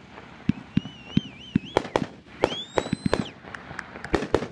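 Badaboom fireworks finale firing: a rapid run of sharp pops and bangs from shots and bursting shells. A wavering whistle sounds about a second in, and a rising whistle is held for about a second midway.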